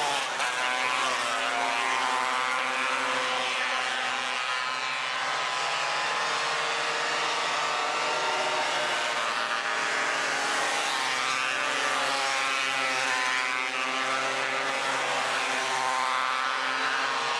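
Several 270cc micro sprint cars racing at speed, engines running hard. Their pitch rises and falls as the cars pass and work through the turns, with more than one engine heard at once.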